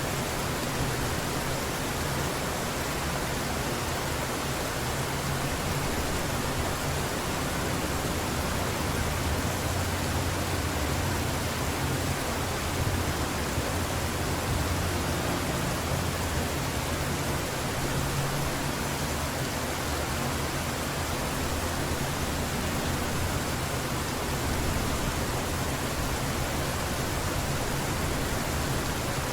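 Heavy rain falling steadily, an even rushing hiss with a low rumble underneath.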